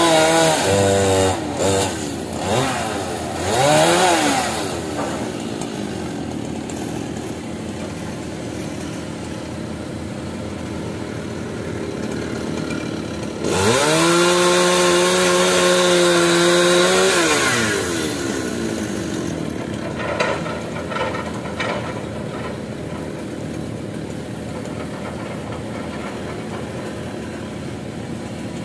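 A two-stroke chainsaw revving in short rises and falls during the first few seconds. About halfway through it runs at steady full throttle for roughly four seconds, then drops back. Under it throughout is the steady drone of an excavator's diesel engine.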